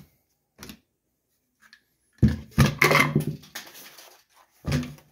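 A hard plastic pump sprayer and other tool-table items being handled and set down on a table: a short knock about half a second in, then a louder cluster of knocks and handling noise from about two seconds in, and another short knock near the end.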